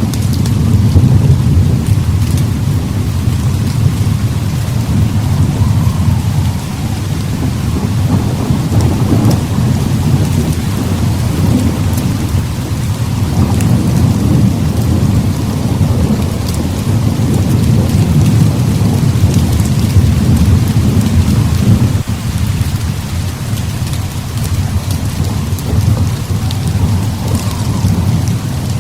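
Heavy rain falling steadily under long, continuous rolls of low thunder that swell and ease, with a brief dip a little past the twenty-second mark.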